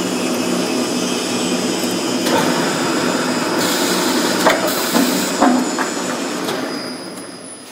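A roller-type log-processing machine of a plywood line running. Its electric drive hums steadily while a thin wooden log core turns between the steel rollers, knocking and clattering several times, and the noise tails off near the end.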